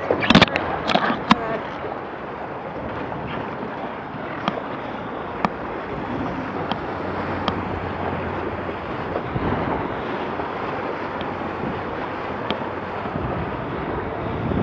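Wind buffeting the microphone and water rushing past the hull of a Laser 2 sailing dinghy under way. There are a few sharp clicks and knocks from the rigging and fittings in the first second and a half, and a faint tick now and then after that.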